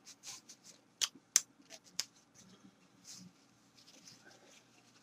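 A few sharp clicks, three close together about a second in, with short soft hissing breaths before and after.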